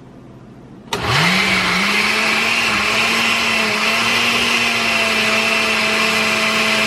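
Electric blender switching on about a second in, its motor spinning up within half a second and then running steadily at full speed. It is pureeing boiled guajillo chiles with a little broth.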